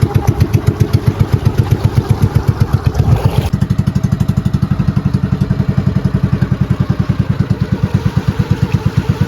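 Small engine running with a steady, rapid pulse of about ten beats a second.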